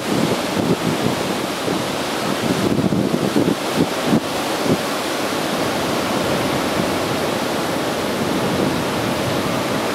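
Surf washing over a rocky shore, with wind buffeting the microphone. The wind is gusty for the first few seconds and steadier after.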